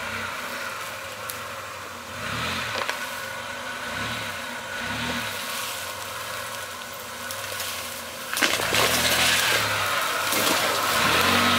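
Mitsubishi Pajero V6 engine revving up and down several times as the SUV drives toward the listener on a dirt track. It gets markedly louder a little past eight seconds in, as the vehicle comes close.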